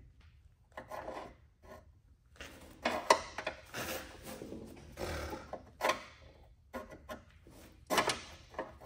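A wooden block scraping and knocking as it is forced into a tight fit across the batteries in a truck's battery box. There are irregular scrapes and several sharp knocks, about three seconds in, near six seconds and near eight seconds.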